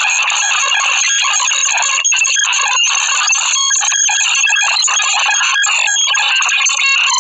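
Black MIDI played through a synthesizer: a loud, harsh wall of thousands of overlapping notes sounding at once, with no pauses.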